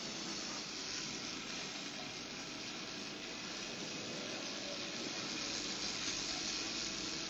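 Steady hiss-like factory floor background noise with no distinct knocks or clanks.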